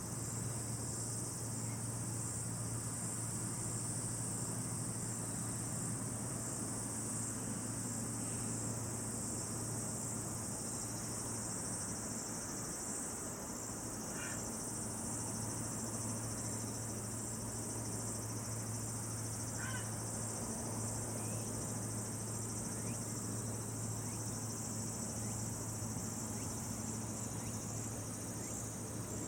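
Steady, high-pitched chorus of crickets or other insects chirping without a break, over a low steady hum. A couple of faint short calls sound about halfway through.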